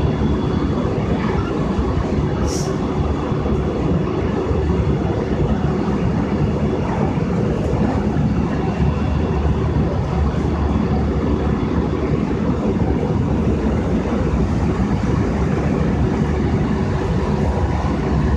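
JR West 223-1000 series electric train running at speed, heard from just behind the driver's cab: a steady, loud rush of wheel-on-rail and running noise. A brief high hiss comes about two and a half seconds in.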